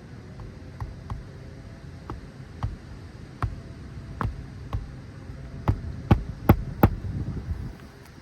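A hammer driving a roofing nail into an asphalt shingle: about a dozen separate sharp strikes, light taps at first, then harder and quicker blows near the end to set the nail.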